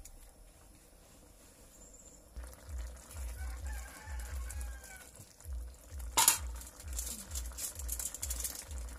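Silicone spatula stirring thick cream sauce in a frying pan, with low rhythmic strokes about twice a second starting a couple of seconds in, and a sharp click about six seconds in. A rooster crows faintly in the background around three to four seconds in.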